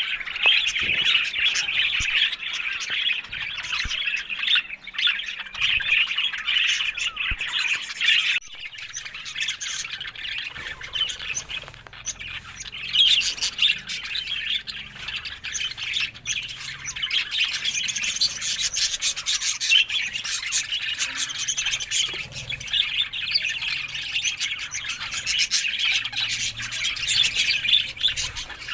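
Budgerigars chattering and warbling continuously in a dense, scratchy stream of chirps, with a brief dip about eight seconds in.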